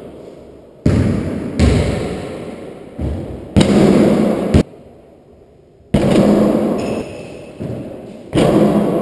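A basketball thudding repeatedly, bouncing on a hardwood floor and hitting the hoop, about eight sharp impacts. Each one rings out with a long echo off the bare walls of an enclosed racquetball court.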